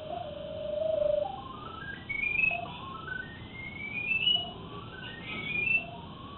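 Pipe locator receiver sounding an electronic tone whose pitch climbs in small steps, several times over. The rising pitch signals a strengthening signal as the locator is swept over the traced sewer line.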